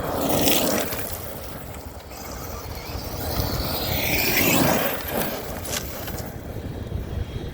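Large-scale electric RC truck's brushless motor whining up and down as it accelerates twice: a short burst just after the start and a longer, louder run about halfway through. Tyre and drivetrain noise runs underneath.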